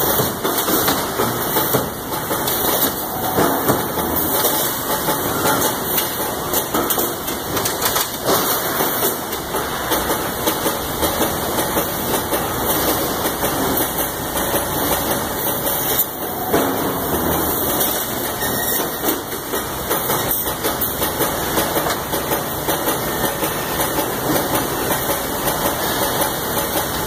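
Loud, steady factory machinery noise from a robotic resistance-welding cell for wire mesh, with a few sudden sharp knocks.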